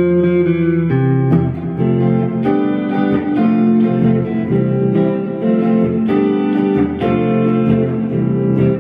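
Electric guitar on its neck humbucker played clean through a Fender Champion 20 modelling amp on its Blackface voice with delay and reverb, heard through the amp's 8-inch speaker: picked chords and single notes that change about every second.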